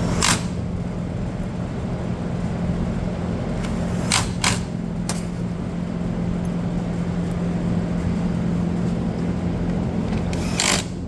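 A few sharp clicks and knocks of tools on the trimmer's cover as it is fastened back on: one at the start, three together about four seconds in, and one near the end. They sit over a steady low hum.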